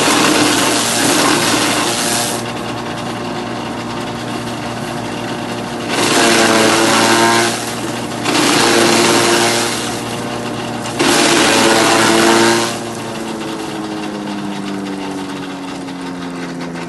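Motorised grass chopper running with a steady hum, loud with noisy rushing stretches four times as it works, the longest about two and a half seconds. Near the end its pitch falls steadily as the machine slows down.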